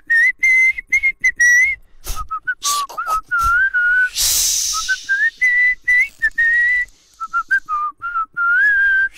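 A man whistling a wavering, warbling tune of short notes that rise and fall, in place of a snake charmer's pipe, to charm a snake. A breathy hiss is heard briefly about four seconds in.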